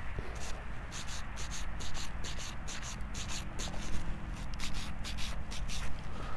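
Small brush scrubbing soil off a dug-up brass object, in quick repeated strokes, several a second.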